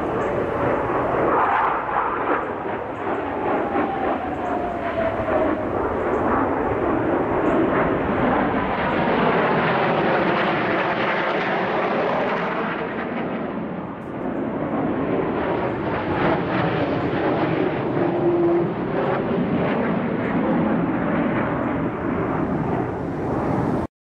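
Military jet aircraft flying overhead: steady jet engine noise that swells, dips about fourteen seconds in, then swells again, with falling whine tones as the jets pass.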